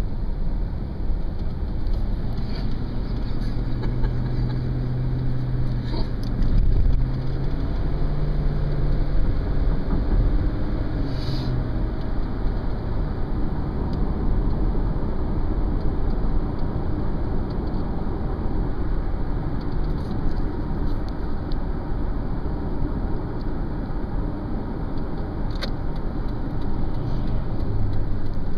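Car driving on a highway, heard from inside the cabin: steady road and engine noise. A low engine note comes and goes during the first dozen seconds.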